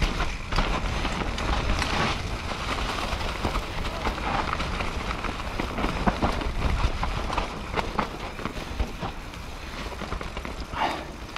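Rockrider AM100S mountain bike riding down a dirt trail, heard from a helmet camera: tyres over dirt and stones with frequent clicks and knocks from the chain and frame, under a steady low rumble of wind and helmet noise.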